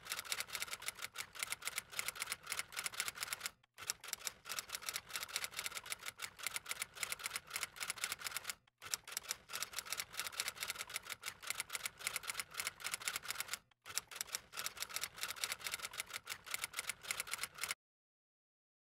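Rapid typewriter key clicks, a typing sound effect for text appearing on screen. They come in runs broken by three brief pauses and stop about a second before the end.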